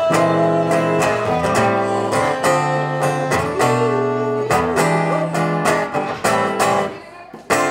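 Acoustic guitar strummed in full chords with a steady rhythm, thinning to a few single strokes near the end.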